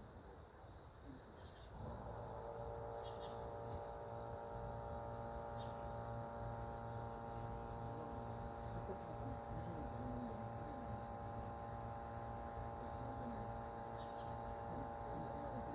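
Insects chirring steadily, likely crickets. About two seconds in, a steady machine hum with several tones starts and runs on under them.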